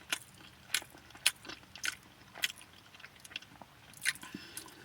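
Close-up chewing of a mouthful of grinder sandwich: quiet, wet mouth clicks and smacks about every half second.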